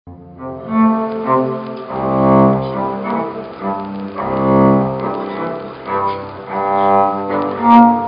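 Live cello playing slow, long bowed notes that swell every second or two, with an acoustic guitar accompanying.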